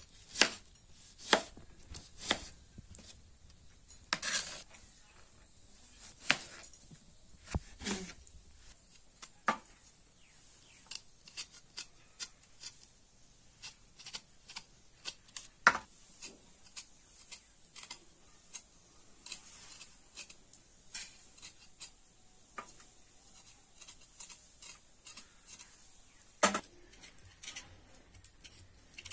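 Chef's knife slicing tomatoes on a plastic chopping board, sharp knocks about once a second. Then lighter, quicker clicks and scrapes as the knife blade scrapes the skin off small taro roots, with one louder knock near the end.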